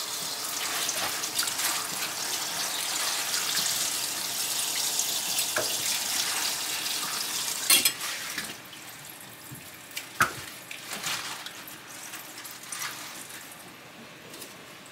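Kitchen tap water running steadily into a sink, with a sharp knock just before the flow is shut off about halfway through. A few light clinks and drips follow.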